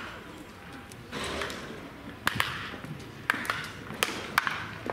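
Sharp cracks of a wooden baseball bat hitting soft-tossed balls in batting practice. They come as a series of separate hits, some in quick pairs.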